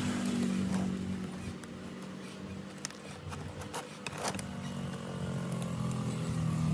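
A motor running steadily with a low hum, easing slightly in the middle and picking up again near the end, with a few sharp ticks and clicks over it.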